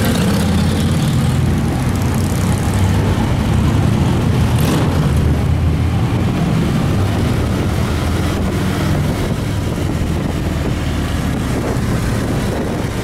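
Touring motorcycle engines running in a group ride, heard from the saddle of one of the bikes as a steady low drone.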